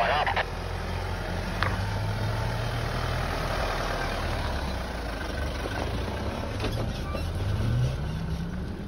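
Toyota Hilux ute's engine pulling up a steep dirt climb as it drives past at close range. The engine note rises sharply about seven seconds in and is loudest just before the end.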